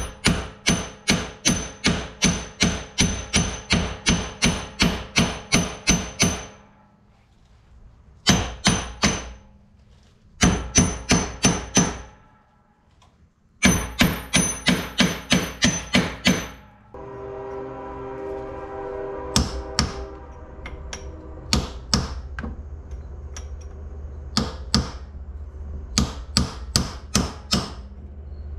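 Hammer striking a car's front wheel hub, about three ringing metal-on-metal blows a second in runs with short pauses, then slower single blows, as the hub and wheel bearing are driven out of the steering knuckle. A steady low rumbling hum comes in about two-thirds of the way through.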